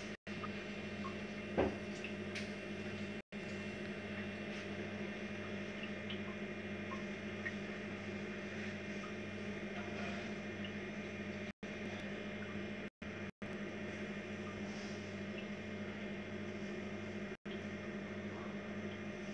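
A steady low hum over a constant hiss, with a single click about one and a half seconds in. The sound is broken by several brief moments of complete silence.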